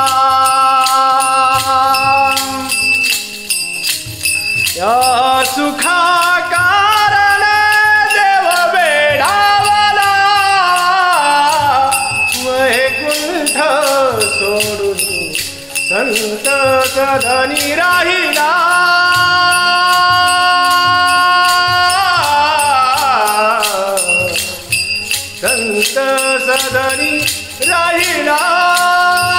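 A Vasudev, a Marathi wandering devotional singer, singing a devotional song in long held notes with sliding ornaments, over a steady jingling, clicking rhythm from his hand percussion.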